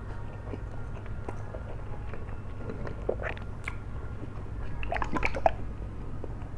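Close-miked chewing of saucy flat rice noodles: wet mouth clicks and squishes that bunch up about three seconds in and again about five seconds in.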